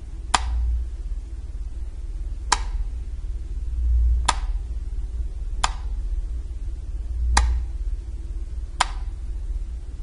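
Six sharp clicks, spaced irregularly about one and a half to two seconds apart, over a low rumble that swells three times.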